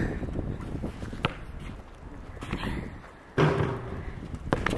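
Basketball bouncing on an outdoor asphalt court: a few sharp thuds, one about a second in and two close together near the end.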